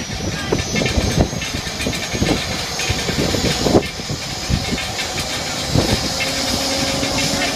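Aircraft cabin noise: a steady rush of air with irregular low knocks and rattles throughout, the strange sound the video is about. A steady hum comes in about six seconds in.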